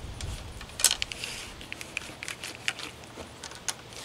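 A wiping stick with a tow worm and a ball of wet tow being pushed and worked down a muzzleloading flintlock rifle's bore to scrub out black-powder fouling: a dull knock at the start, then an irregular run of sharp clicks and short scrapes, loudest about a second in.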